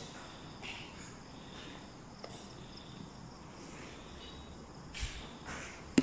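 Crickets chirring steadily in the background, with a few soft scuffing steps and a single sharp knock right at the end.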